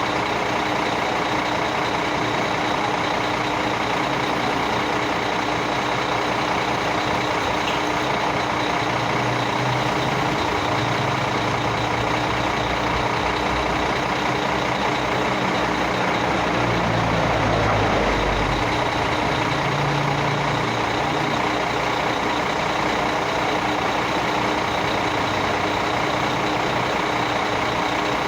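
Heavy diesel vehicles running steadily, with a low engine rumble that builds and peaks about two-thirds of the way through, as of a large truck or machine working or passing close.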